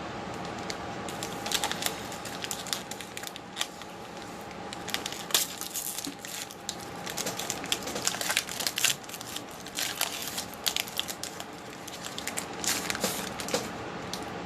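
Wrapper of a football trading card pack crinkling and tearing as it is opened, a run of irregular crackles and rustles.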